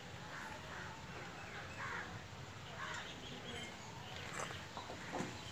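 Crows cawing, several short harsh calls one after another, with a few light clicks near the end.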